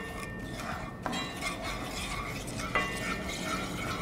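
Wooden spoon stirring and scraping garlic and spices around in hot olive oil in an enamelled pot, browning the garlic. Two light knocks with a brief ring, about a second in and just before three seconds.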